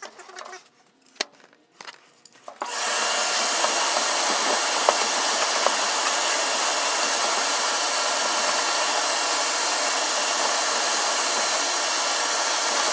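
A few faint scrapes and clicks, then about three seconds in a motor-driven machine starts with a steady, even rushing noise and runs on with a few small ticks over it.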